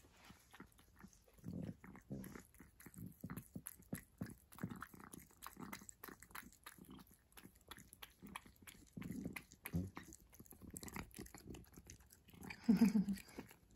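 A cat eating wet food from a bowl: irregular wet chewing and smacking clicks. Near the end comes one short, low-pitched vocal sound, the loudest moment.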